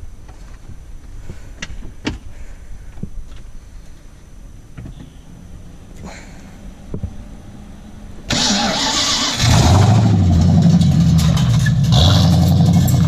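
The swapped 5.0 V8 in a Nissan 240SX is cranked by its starter about eight seconds in, then catches about a second later and runs loud and uneven. Before that there are only a few light clicks and knocks.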